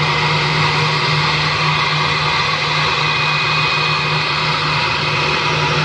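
Airbus A319's twin jet engines running steadily at taxi power: a constant whine over a low hum and broad hiss.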